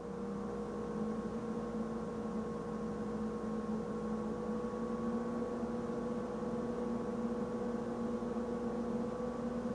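Dell PowerEdge 1800 server's cooling fans running at raised speed, a steady hum of several held tones, spun up because both Xeon processors are loaded to 100%.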